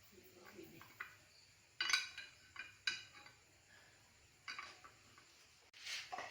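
Metal tools and small brake parts clinking and knocking as they are handled, in a handful of separate sharp clinks, the loudest about two seconds in.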